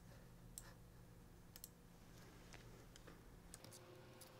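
Near silence with a handful of faint, scattered clicks from a computer mouse and keyboard keys, over a faint steady hum.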